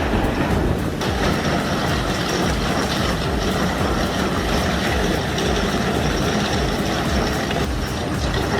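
Heavy construction machine's diesel engine running steadily under load, a dense continuous engine noise with strong low end.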